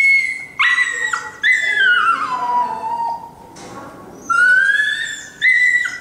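A dog whining in a run of about five long, high-pitched cries, most sliding down in pitch and one rising.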